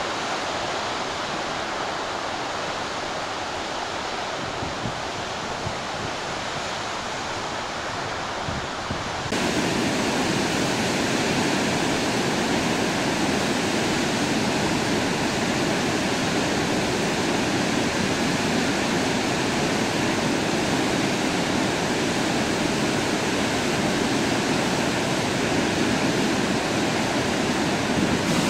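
Steady rush of a large meltwater-river waterfall, a continuous noise of falling water. About nine seconds in it jumps suddenly louder and fuller.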